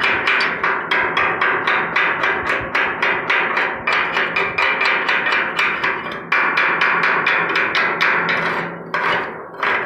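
Stick-welding arc crackling in a quick, regular pulse of about five snaps a second while a coated electrode lays a fillet weld along a steel gusset plate. It dips and breaks off briefly near the end.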